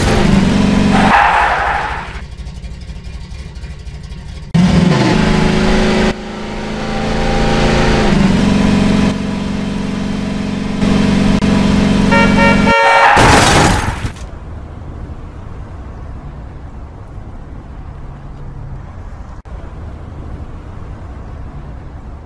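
Car horn sound effects honking in long blasts, cut off sharply several times, then a loud noisy burst about thirteen seconds in, followed by a quieter steady hiss.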